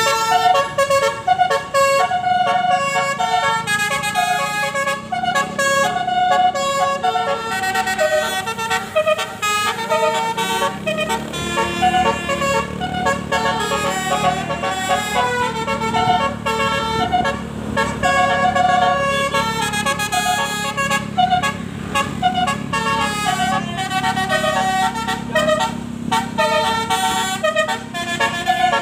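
Tour bus's Basuri telolet horn playing a continuous, quick-changing multi-note melody, with a steady low hum underneath.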